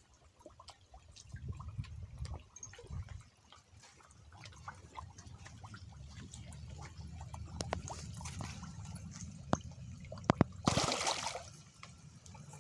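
Small drips and trickling of water in a garden pond, over a low rumble on the microphone. A short, louder noisy burst comes near the end.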